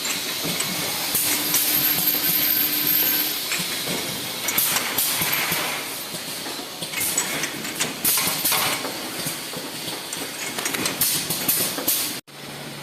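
Automatic perfume filling machine running: a steady hiss of compressed air with many quick clicks and clatters from its moving parts. The sound breaks off abruptly near the end.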